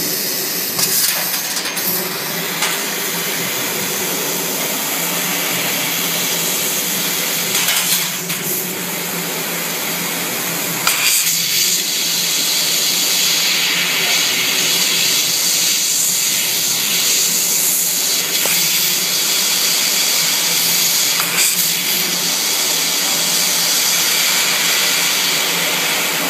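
CNC laser cutter cutting stainless steel: a steady hiss over a low machine hum, with a few sharp clicks about eight and eleven seconds in, getting slightly louder after the second click.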